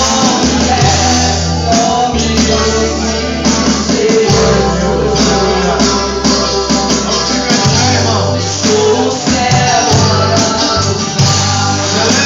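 Live church worship band playing a song, with singing over a bass line that holds long low notes.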